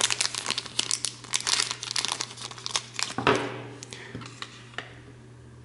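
White plastic bag crinkling as a small adapter is pulled out of it: dense crackling for about three seconds, then a few scattered crackles before it goes still.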